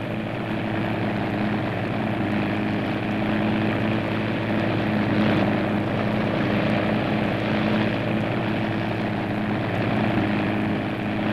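Light propeller plane's piston engine droning steadily in flight, a constant low hum with propeller noise over it.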